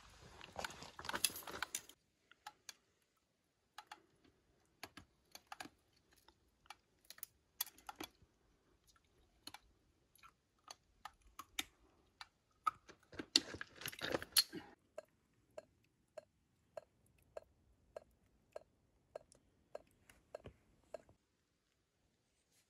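Meltwater dripping from icicles on a rock face: scattered drops ticking, with a brief crunching rustle in the first two seconds and another busy cluster a little past the middle. Towards the end the drops fall steadily, a little under twice a second, each with a small pitched plink.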